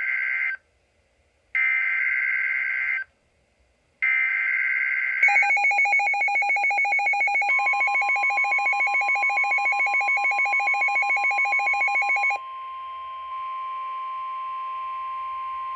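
Emergency Alert System SAME header: three bursts of screeching two-tone digital data with short silences between them. Then a rapidly pulsing electronic alert tone, joined about seven seconds in by a steady high tone that carries on alone after the pulsing stops about twelve seconds in.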